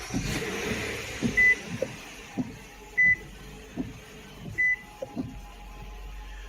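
A 2016 Nissan Pathfinder's warning chime beeps four times at one high pitch, about a second and a half apart, as the car is switched on. Under it runs a steady low hum, with a few soft knocks.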